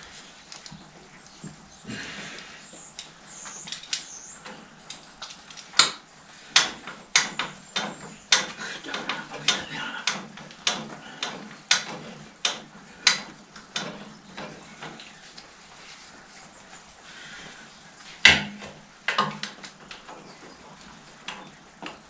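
Hammer blows on steel: a run of sharp strikes about one and a half a second, then after a pause one harder blow followed by a few lighter taps. The blows fall on a seized clutch pedal shaft of a Fordson Major tractor, which is being worked out of its housing.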